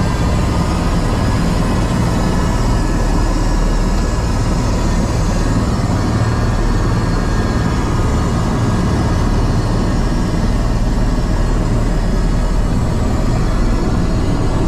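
Airbus H130 helicopter's turbine engine and rotor running steadily, heard from inside the cabin: a continuous deep rumble with a thin turbine whine over it.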